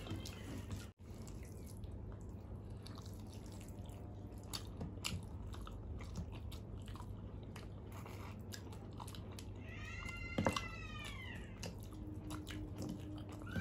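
Close-up eating sounds of rice and curry eaten by hand: wet chewing and small clicks of fingers against steel plates. About ten seconds in a cat meows once, and a second meow begins right at the end.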